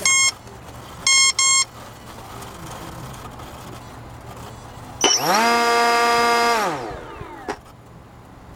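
Brushless ESC arming beeps: a single beep, then two more about a second later. Then the E-flite Park 480 brushless outrunner with an 8x8 propeller spins up quickly, runs steadily for about a second and a half, and winds down fast once the throttle is cut. The ESC's motor brake is programmed on, which stops the propeller within a fraction of a second.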